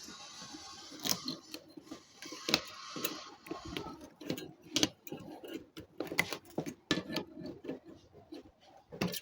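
Scattered metal clicks and knocks as a compressed coil spring is worked into a car door hinge, about half a dozen sharp hits in all.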